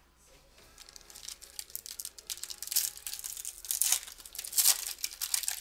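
A trading-card pack's wrapper being torn open and crinkled by hand, a crackling that grows louder with a few sharp rips in the second half.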